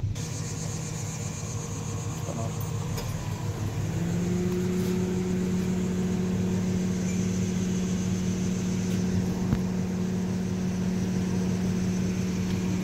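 Pickup truck engine idling, first from inside the cab and then from beside the open driver's door. About four seconds in, a steady low hum rises and holds.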